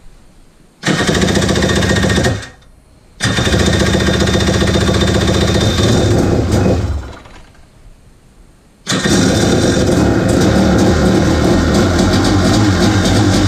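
Yamaha WaveBlaster's 701 two-stroke twin turned over by its electric starter in three runs, of about one and a half, three and a half and five seconds. It spins steadily without the clicking racket of a failing starter relay, a sign that the new relay has cured the no-start.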